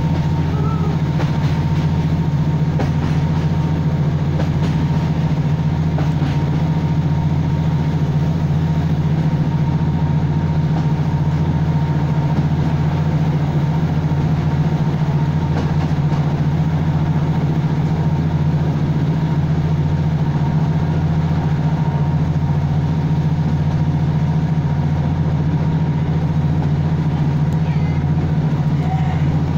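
Cabin noise inside a diesel multiple unit running steadily along the line: a constant low drone from the underfloor engine and wheels on the rails, with a faint steady tone above it.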